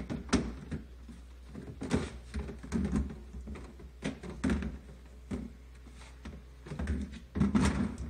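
Plastic freezer basket of a Bosch refrigerator being handled on its drawer rails: irregular knocks and clatters of plastic against the drawer frame, with the loudest rattle near the end as the basket is lifted up out of the drawer.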